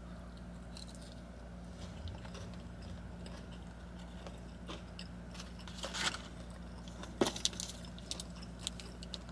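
Close-up chewing and biting of fast food, wet mouth clicks scattered throughout and a cluster of sharper clicks and crunches about six to eight seconds in, over a steady low hum.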